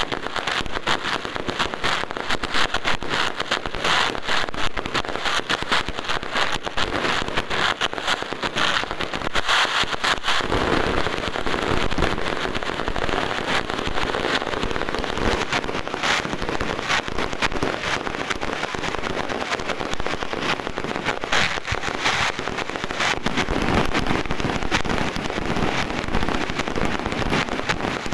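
Fireworks display: a dense, continuous barrage of bangs and crackling from ground-level fountains and aerial shells. From about a third of the way in, heavier, deeper bangs join the crackle.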